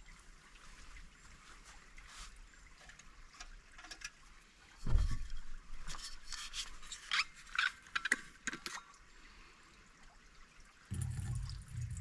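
Camp gear being handled: a dull thump about five seconds in, then a few seconds of clicks and taps, over the faint trickle of a stream. A low rumble starts near the end.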